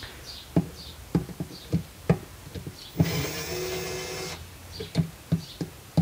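Cordless drill-driver running steadily for about a second and a half, about three seconds in, loosening a self-tapping screw in a plastic washing-machine agitator. Scattered sharp clicks and knocks come before and after it.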